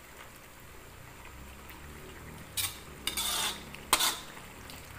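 Metal spoon stirring in an aluminium cooking pan of cassava leaves in coconut milk. There is a clink a little after halfway, a short scrape just after, and a sharp clink of metal on the pan about four seconds in.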